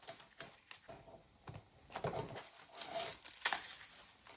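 Handling noise from a handmade paper junk journal: pages and card rustling and light taps and clicks as it is flipped and moved, busiest in the second half.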